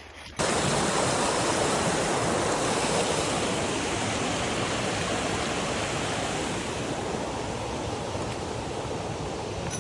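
A creek running hard: a steady rush of water that starts abruptly about half a second in and eases off slowly.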